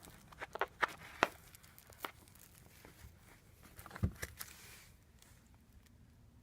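Kittens scrambling about on a soft, rustling surface: scattered light taps, scratches and crinkles, with a soft thump about four seconds in.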